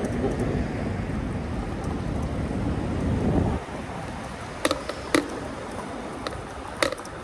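Low rumble of wind and riding noise from an e-bike in motion, which drops off abruptly about three and a half seconds in, followed by a few sharp clicks.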